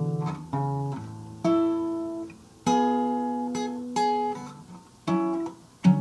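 Acoustic guitar playing chords, each struck and left to ring out and fade, about one a second.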